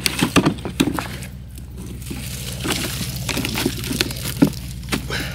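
Wood being handled and set in place for a fire: a scatter of dry knocks and crunches of wood and bark, several together near the start and single ones spread over the rest. A steady low hum runs underneath.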